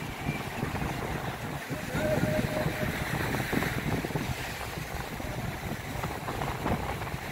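Wind buffeting the microphone in an uneven low rumble, over the wash of surf breaking on a sandy beach.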